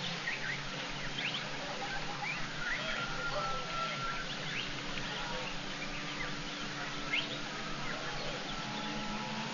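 Outdoor bush ambience: a dense insect chorus with many short chirping calls scattered throughout, over a faint steady low hum.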